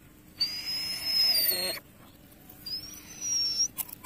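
An injured dog whining: two long, high-pitched whines, the first held level and dipping at its end, the second rising in pitch.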